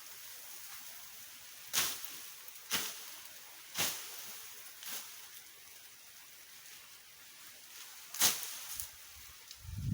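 Sharp short strikes over a faint steady hiss: four about a second apart, a pause, then one more near the end.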